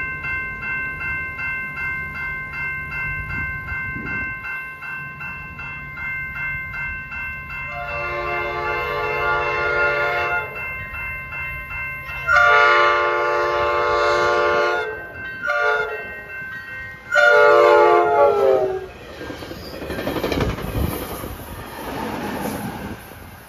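Railroad crossing bell ringing steadily at about two strokes a second as a NCTD Coaster commuter train with a Siemens Charger locomotive approaches. The train's horn sounds the grade-crossing signal: long, long, short, long. The last blast is the loudest. Near the end the train rumbles past the crossing, with wheel and rail noise.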